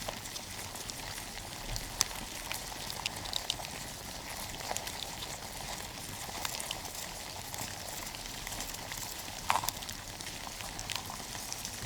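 Many small cockroaches scrabbling in a box: irregular faint ticks and scratches of their legs and bodies over a steady hiss, with a few sharper clicks, about two seconds in and again near the end.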